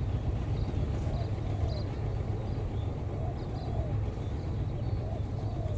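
KAI diesel-electric locomotive's engine running with a steady low rumble, holding power before pulling away.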